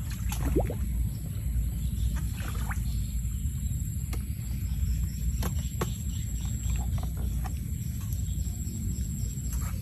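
Handling of a bamboo eel trap: a few sharp taps and knocks, with a short squeak about half a second in, over a steady low rumble and a faint, steady high whine.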